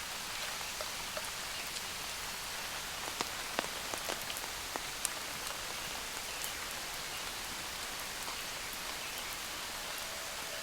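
Steady rain falling, with single heavier drops striking close by as sharp ticks, most of them between about three and five seconds in.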